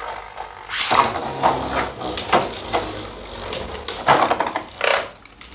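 Beyblade Burst spinning tops in a plastic stadium, first whirring, then clattering from about a second in with a run of sharp clacks and scrapes as they hit each other and the stadium wall.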